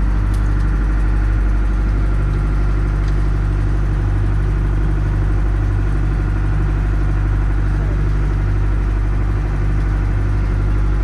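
Boat engine running steadily, an even low hum that holds one pitch throughout.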